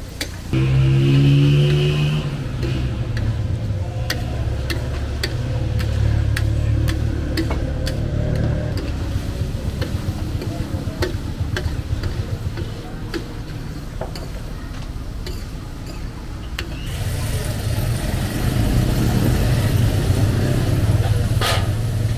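Street traffic running close by: motor vehicle engines rumbling, swelling again near the end, with a pitched engine or horn-like tone about a second in. Short sharp clicks sound throughout.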